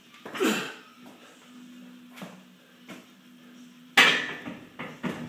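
Barbell loaded with bumper plates dropped onto a rubber gym mat about four seconds in: one heavy bang, then a smaller bounce about a second later. A shorter, softer noise comes about half a second in.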